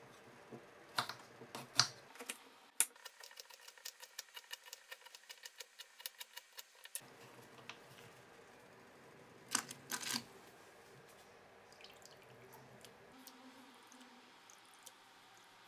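Kitchen knife chopping fresh ginger on a wooden cutting board: scattered sharp knocks, then a fast even run of about nine taps a second for around four seconds, and two louder knocks about ten seconds in.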